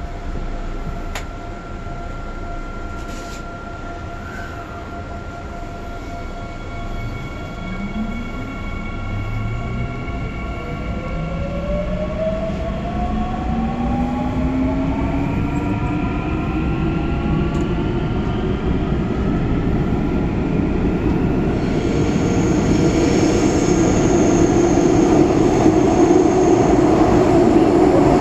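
Seoul Metro Line 9 Class 9000 electric multiple unit pulling away from a station, heard from inside the car. After a few seconds of steady hum, the traction motors' whine climbs in several tones at once as the train gathers speed. Wheel and rail noise grows louder toward the end as it runs into the tunnel.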